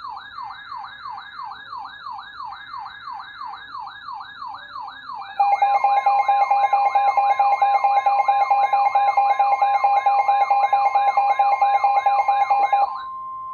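Emergency Alert System alert tones: a siren-like tone sweeping up and down about three times a second, with a few faint short data bursts early on. About five seconds in, the steady two-tone EAS attention signal joins, much louder. Near the end it cuts out, leaving a single steady tone.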